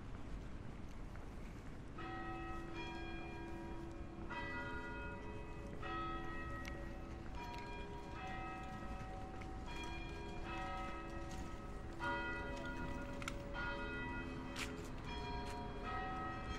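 Bells ringing a peal, struck about twice a second and overlapping, starting about two seconds in over the low hum of the city. There is a single sharp click near the end.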